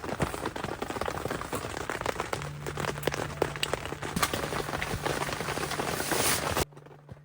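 Heavy rain pelting down, a dense hiss full of sharp drop hits, which cuts off abruptly near the end.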